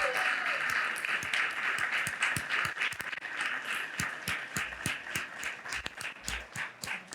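Audience applauding. The clapping is dense at first and thins out toward the end into scattered, more separate claps.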